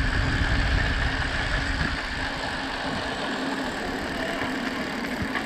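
Rolling noise of a 2020 Trek Procaliber 9.6 mountain bike on a gravel path: the knobby 29-inch Maxxis tyres crunching and humming over the surface as the bike rolls along. A heavier low rumble in the first two seconds eases off.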